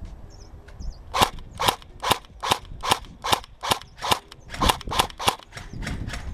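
Airsoft gun firing a string of about a dozen single shots at a steady pace of two to three a second, each a sharp snap, starting about a second in and stopping shortly before the end.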